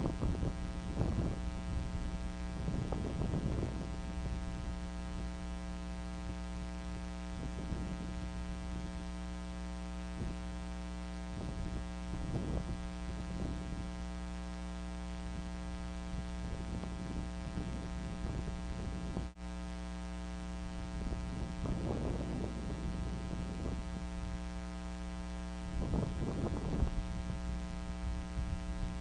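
Steady electrical mains hum with a buzzy edge in the nest camera's audio feed, with a few short rustling noises scattered through it. The sound drops out for an instant about two-thirds of the way in.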